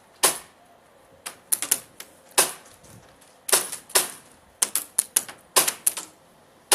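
Airsoft guns firing: sharp cracks, singly and in quick runs of two to four, about eighteen shots in all at an irregular pace.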